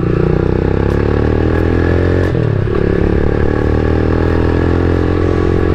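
Rusi Classic 250 motorcycle engine pulling as the bike speeds up, its pitch rising steadily. About two and a half seconds in the note dips briefly for an upshift, then climbs again.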